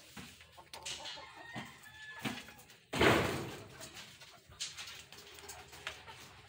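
Chickens clucking, with a sudden loud thump about three seconds in that fades over about a second.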